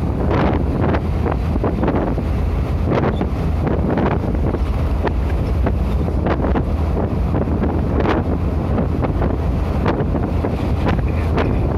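Road and engine noise inside a vehicle's cabin at highway speed: a loud, steady low rumble with wind noise and irregular brief buffets on the microphone.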